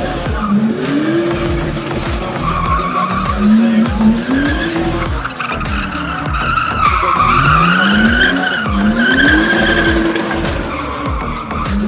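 BMW 2002 drifting: the engine revs up hard again and again, about six climbs in pitch, over a wavering tyre squeal that grows loudest in the second half.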